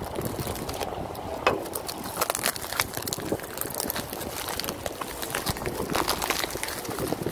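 Plastic bubble wrap and a plastic bag crinkling and rustling as hands pull the package open, with many sharp little crackles.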